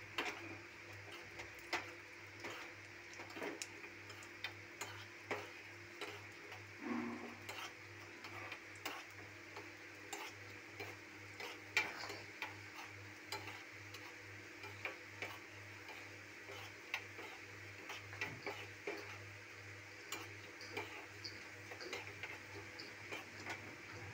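Tadka of mustard seeds, cumin and urad and chana dal frying in hot ghee in a small steel pan, stirred with a metal spoon: a faint sizzle with irregular sharp clicks, one or two a second.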